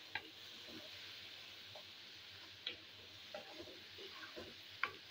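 Wooden spatula clicking and scraping against a wok while stirring onion-tomato masala, with a faint sizzle of the masala frying in oil. A few sharp clicks, the loudest near the end.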